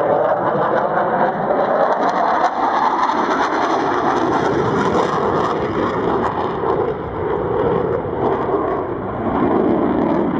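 Loud, steady noise of a SAAB J35J Draken's RM6C afterburning turbojet, a licence-built Rolls-Royce Avon, in flight overhead, its tone shifting slowly as the jet turns.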